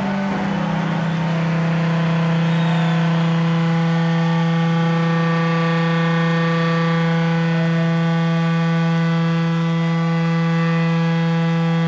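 Distorted electric guitar sustaining one long, steady note with a rich stack of overtones, with no drums underneath.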